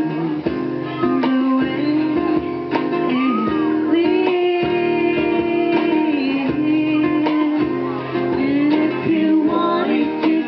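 Acoustic band music: acoustic guitar strummed and plucked under a sung melody.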